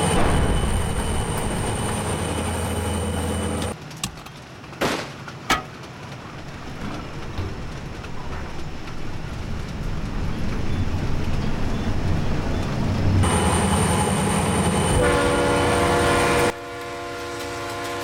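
Diesel locomotive sound effect: the engine runs with a steady heavy hum, drops to a quieter rumble about four seconds in with two sharp knocks, then grows loud again. For the last three seconds a train whistle sounds several notes together, held steady.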